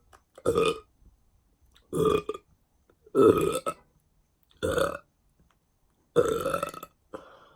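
A woman burping: five loud, separate burps in a row about a second and a half apart, then a smaller one near the end.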